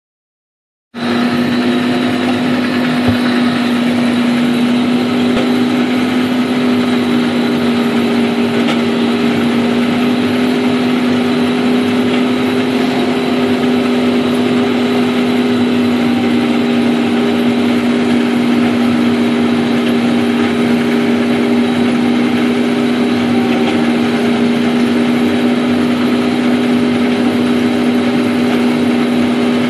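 John Deere tractor running steadily under load, driving a Krone round baler through its PTO shaft as the pickup takes in a heavy windrow: an even drone with a strong steady hum, starting about a second in.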